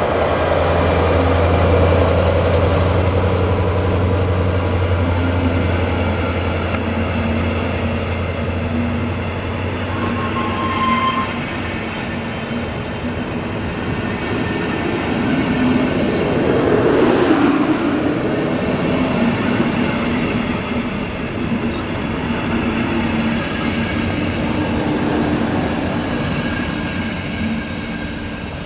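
A Siemens ER20 (Class 223) diesel-electric locomotive drones as it pulls a passenger train away, passing close by. The engine drone fades after about ten seconds, leaving the coaches' wheels rumbling past on the rails.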